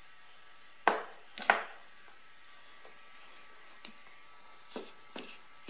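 Greasy steel CV joint parts, the ball cage and inner hub, being handled and set down on a workbench: two sharp knocks about a second in, then a few lighter knocks and clicks.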